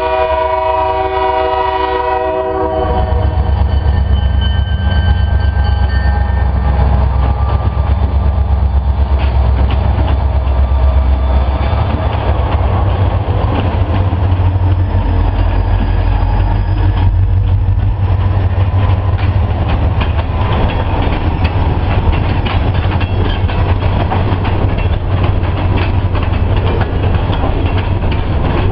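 Two EMD SD40-2 diesel-electric locomotives pass close by. Their air horn sounds a chord that cuts off about two seconds in, followed by the heavy low rumble of the diesel engines. From about halfway on, the freight cars' wheels clatter over the rail joints.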